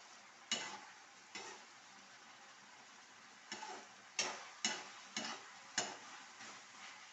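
A spoon stirring food in a cooking pan, scraping and knocking against it several times, over a faint steady sizzle.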